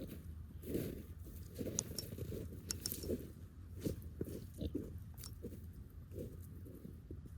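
Kunekune pigs grazing close by, with irregular soft crunches of chewing and tearing at grass and a few sharp little clicks.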